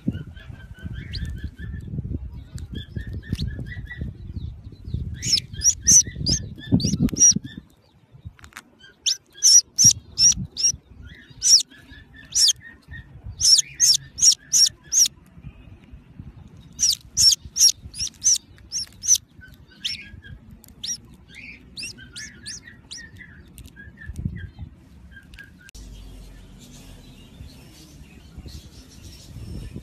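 Budgerigars chirping: bursts of quick, sharp, high chirps in runs, with softer, lower chirps between them. A low rustle lies under the first seven seconds or so.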